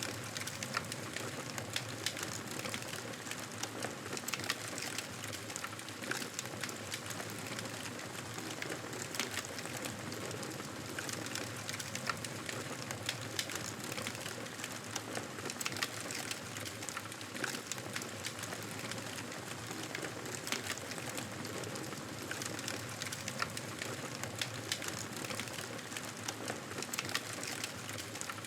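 Wood fire crackling in a fireplace: a steady hiss with frequent small, sharp pops scattered throughout.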